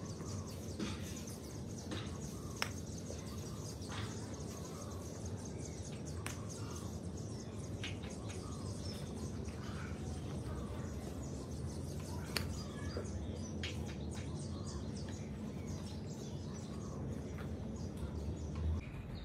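Outdoor garden ambience: a steady low background rumble with birds chirping here and there, broken by a dozen or so short sharp clicks.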